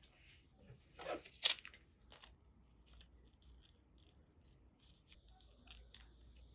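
Paper being handled: a crinkling rustle about a second in, sharpest at its end, then scattered light clicks and ticks.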